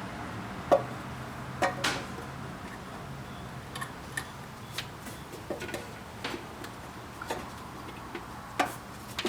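Scattered light clicks and taps of parts being handled as the airbox hold-down strap is worked into position.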